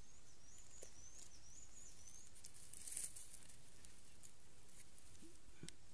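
Faint handling sounds of a string snare being set with bamboo sticks over a burrow: light rustling of dry leaves and soil with a few small clicks, the loudest a short rustle about three seconds in. A high, thin, wavering chirp repeats in rising steps through the first two seconds.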